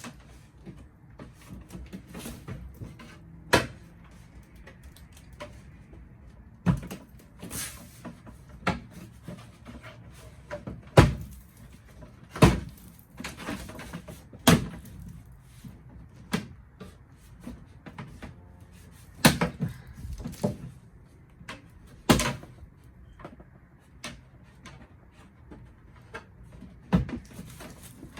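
Irregular knocks and clacks of a plastic aftermarket rear diffuser being handled and pushed up under a car's rear bumper. The loudest knock comes about eleven seconds in. The diffuser's mounting holes are offset, so it will not seat.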